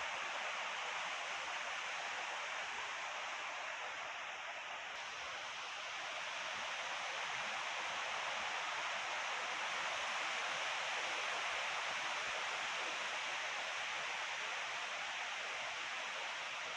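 Wind blowing: a steady rushing hiss with a rustle in it. It eases slightly about five seconds in and swells again after.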